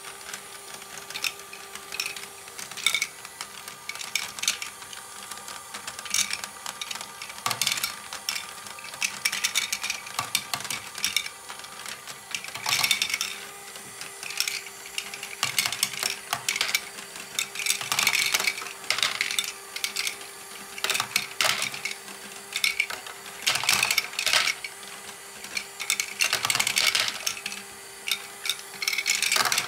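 Lego Technic ball-contraption bucket wheel running: light plastic balls clatter and rattle in irregular clusters as the buckets scoop them and tip them onto the chute, over a steady hum from the turning gear train.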